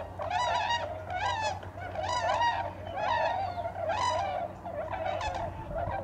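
A flock of swans calling, many high, hooting calls overlapping in a continuous chorus.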